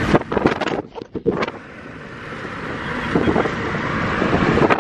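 Road and wind noise inside a small moving car's cabin, a steady rush that grows louder through the second half, with a few knocks in the first second and a half.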